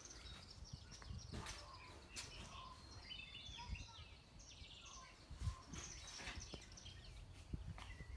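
Faint birds chirping and singing in short, quick phrases, over a low outdoor rumble with a few soft thumps.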